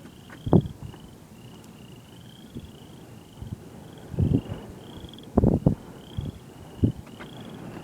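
A chorus of frogs and insects calling: a continuous run of short high chirps, several a second, broken by a few louder low thuds.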